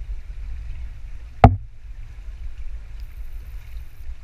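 Pool water sloshing around a camera held half-submerged at the surface, a steady low rumble, with one sharp knock about a second and a half in.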